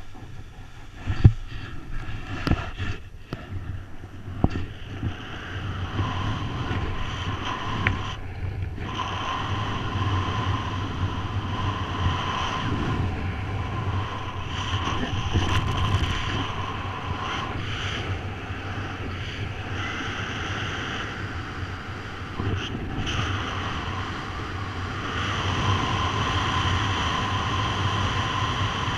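Skis scraping and knocking on snow for the first few seconds of a ski launch, then a steady rush of airflow buffeting the microphone as the paraglider flies.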